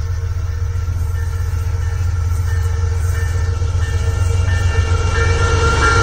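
Diesel-electric freight locomotive approaching, its engine a steady low rumble that slowly grows louder as it nears. Faint steady high tones come in from about halfway.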